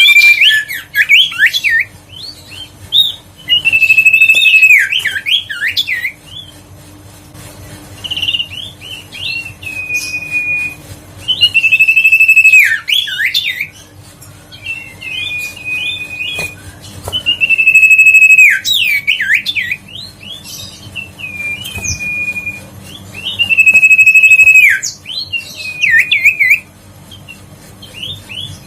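Common iora singing: loud repeated phrases, each a long level whistle that drops away in a quick downward slur followed by a few rapid notes, coming every two to six seconds with softer chatter between.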